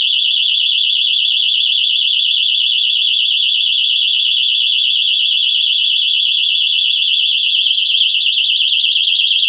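Battery motion-detector alarm sounding continuously after being triggered: a loud, shrill electronic tone with a fast warble.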